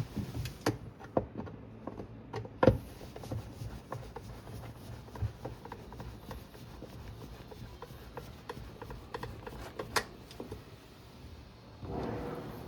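Irregular knocks and clicks with some rubbing and scraping, as of hand work on washing-machine parts. The sharpest knocks come at the very start, a little under three seconds in, and about ten seconds in.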